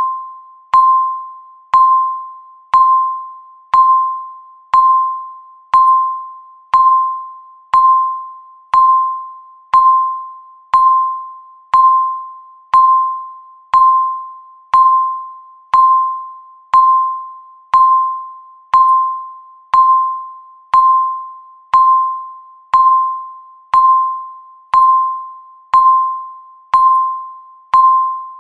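Countdown timer's electronic tick sound, sounding once a second: each tick is a sharp click followed by a short ringing beep that fades away before the next.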